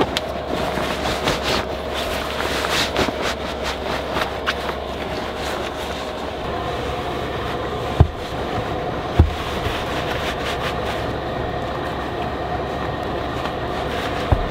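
A vehicle moving with a steady rumble of running noise. A rattle of clicks comes in the first few seconds, and two short thumps come about eight and nine seconds in.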